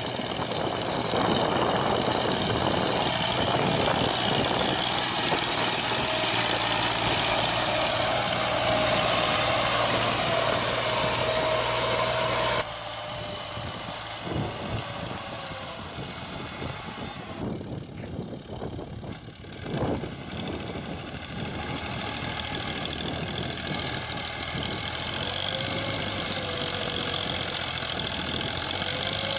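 Fiat 480 tractor's diesel engine running steadily under load as it pulls a tillage implement across the field. About halfway through, the sound abruptly drops to a quieter, more distant engine noise.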